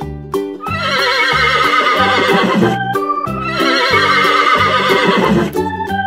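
Horse whinnying twice, each a wavering call of about two seconds, over background music with a steady beat.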